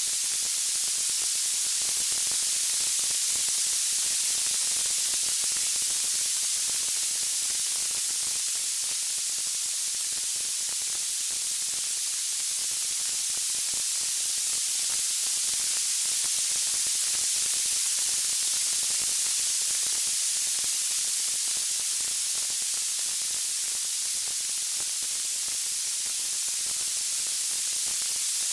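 Wood fire crackling: a steady high hiss with dense, fine crackles throughout.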